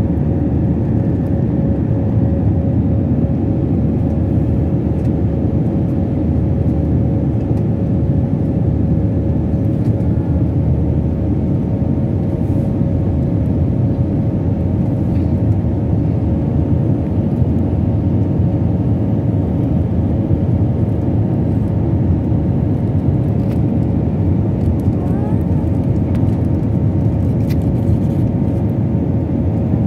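Cabin noise inside an Airbus A320-family jet airliner climbing after takeoff: the engines and rushing air make a loud, steady rumble with a steady hum running through it.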